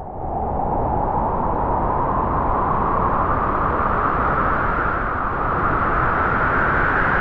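Wind blowing hard and steadily, a loud rush with a hollow whistling tone that slowly rises in pitch, swelling during the first second.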